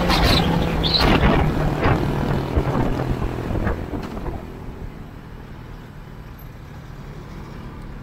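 Motorcycle engine and wind rush while the bike decelerates. The engine note and wind are loud at first, then fall away about halfway through to a much quieter low rumble as the motorcycle slows to a stop.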